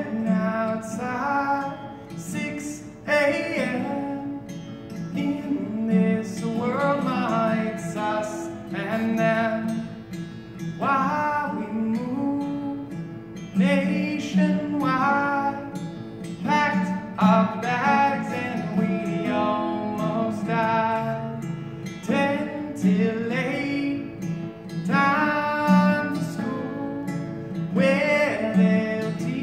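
A song: a strummed acoustic guitar with a voice singing phrases over it.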